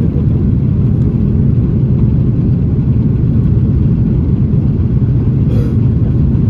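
Steady low rumble inside the cabin of an Airbus A330-900neo on approach: noise from its Rolls-Royce Trent 7000 engines and the airflow, heard through the fuselage. A brief, faint higher sound comes about five and a half seconds in.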